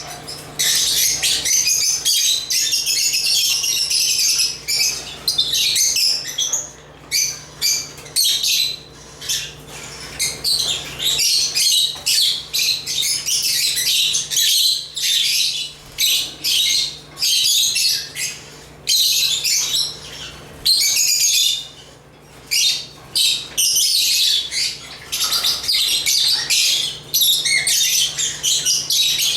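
African lovebirds chirping and squawking in rapid, high-pitched chatter that comes in bursts broken by brief pauses.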